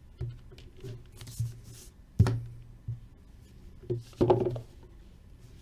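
Hockey card packs and boxes handled on a tabletop: several thuds and knocks at uneven intervals, the loudest about two seconds in, with a brief rustle of packaging.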